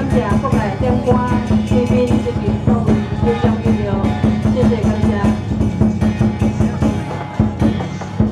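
Temple procession music: fast, steady drum and percussion beats with a pitched melody gliding over them.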